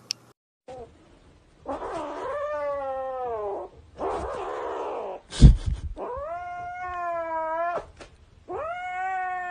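Kitten yowling in three long drawn-out wails, with a harsh rasping stretch between the first two. A loud thump comes about five and a half seconds in.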